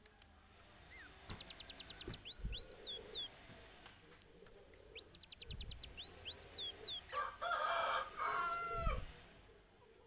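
Two bursts of quick, high songbird chirps and sliding whistles, about one and five seconds in. Then a louder rooster crow in two parts, from about seven seconds in.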